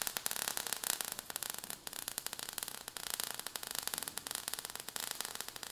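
Steady crackling hiss of burning sparks, a sound effect under an animated logo, made of many rapid small crackles.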